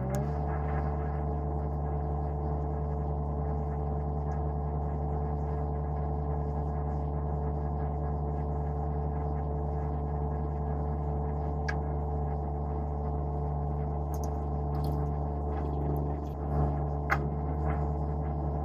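Derette V1000 mini skid steer with stump grinder attachment running at a steady, even speed, a hum of several fixed pitches, with a few short sharp clicks in the last few seconds.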